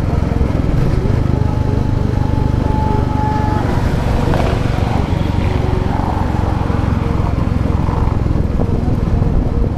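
Royal Enfield Classic 350's single-cylinder engine running steadily as the motorcycle rides along, with road and wind noise.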